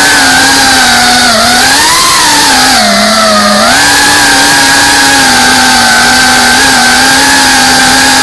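FPV quadcopter's brushless motors and propellers whining loudly, recorded on board. The pitch swings up and down with the throttle for the first few seconds, dips about three seconds in, then holds nearly level.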